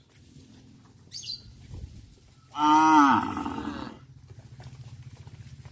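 A cow mooing once, a loud call of about a second and a half that starts about two and a half seconds in and falls in pitch at the end. A low, rapidly pulsing hum sets in just after it.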